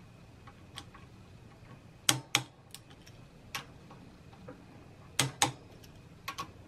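Click-type torque wrench breaking over at its set torque, about 10 N·m, on the sprocket bolts: two sharp double clicks about three seconds apart, each a pair of clicks a quarter second apart, with a few lighter ticks between.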